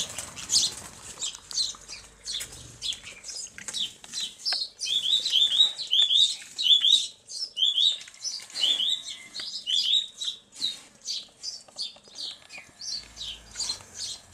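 Small birds chirping and singing: many short, high chirps, with a quick run of repeated rising notes about five to eight seconds in.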